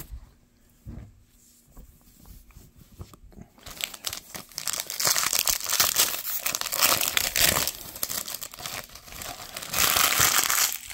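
Foil wrapper of a Panini Absolute Football trading-card pack crinkling and tearing as it is opened by hand. The crackling starts about four seconds in and comes back loudest near the end.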